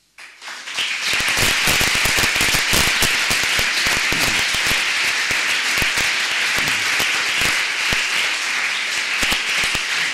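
Audience applauding: clapping breaks out just after the start, swells within about a second, then holds steady.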